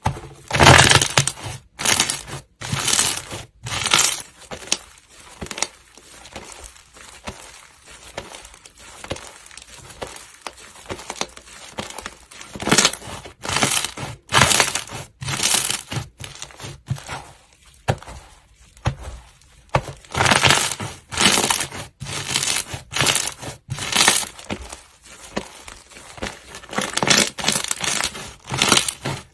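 Slime being squeezed and pressed by hand, giving a run of crisp crackling crunches at irregular intervals, each lasting a fraction of a second to about a second.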